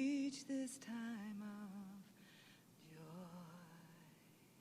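A single voice singing a slow, wavering melody. The voice fades out about two seconds in, and a fainter, softer phrase follows about three seconds in.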